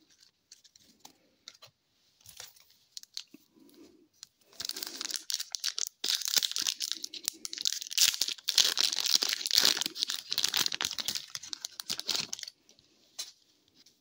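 Foil wrapper of a hockey card pack being torn open and crinkled in the hands. It starts about four and a half seconds in, runs dense and crackling for about eight seconds, then stops abruptly. Faint clicks of cards being handled come before it.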